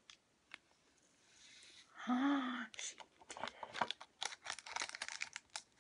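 Plastic candy-kit powder packet crinkling and rustling in quick irregular crackles as it is shaken out over a small plastic toy toilet mould, starting about three seconds in. A short voice sound comes just before.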